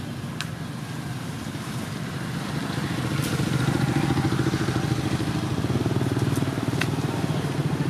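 Motorcycle engine running, growing louder about three seconds in and staying loud. Two sharp clicks, one near the start and one near the end.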